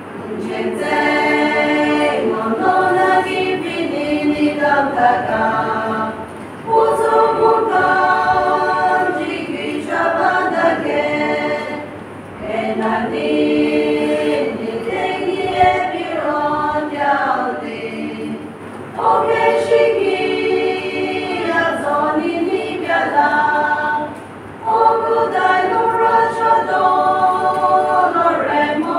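A group of voices singing a hymn together, unaccompanied, in phrases of about six seconds with short breaks for breath between them.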